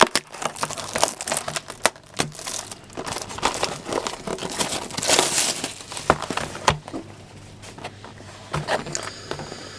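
Packaging crinkling and rustling with scattered sharp clicks as a box of trading card packs is opened and its contents handled. The handling is busiest in the first seven seconds and quieter after that.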